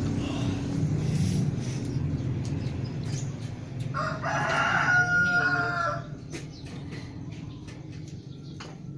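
A rooster crows once, a call of about two seconds starting around four seconds in. A low rumble fades out before it.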